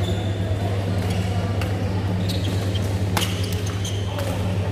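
Badminton rackets striking a shuttlecock during a rally: several sharp cracks, the loudest about three seconds in, over a steady low hum.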